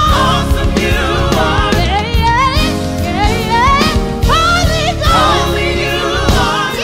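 Gospel music: singing with a wide vibrato over a band with a steady bass line and drum beat.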